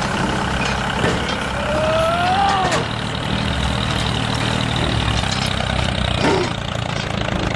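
Tractor-type diesel engine running steadily at low revs, most likely a sound effect laid over the toy tractor. A brief tone rises and then falls about two seconds in.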